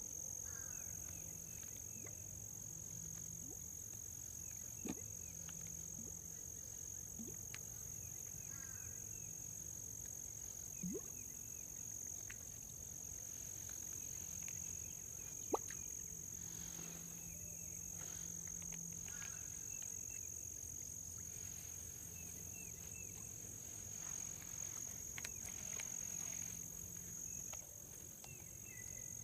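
Steady high-pitched insect chorus trilling without a break, with a few faint scattered clicks and knocks, the sharpest about halfway through.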